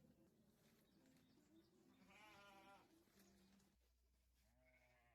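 Sheep bleating: a strong bleat about two seconds in and another near the end, with lower, deeper bleats in between.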